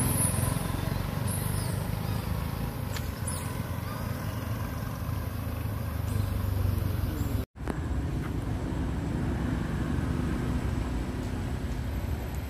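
Steady low outdoor rumble with a few faint high squeaks in the first few seconds. The sound cuts out to silence for an instant a little past halfway, then the rumble carries on.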